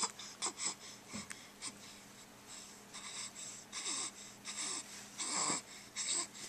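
A young baby breathing in quick, excited huffs and snorts with small grunting vocal sounds, a dozen or so short bursts, the loudest about five seconds in.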